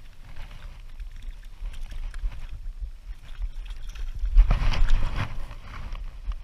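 A hooked fish splashing at the water's surface as it is drawn in to a rocky shore, with a loud burst of splashing about four and a half seconds in.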